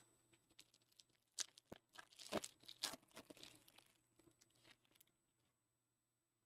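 Faint crinkling and light clicks of trading cards and pack wrapper being handled, with a few sharper snaps in the first few seconds. It fades to near silence about five seconds in.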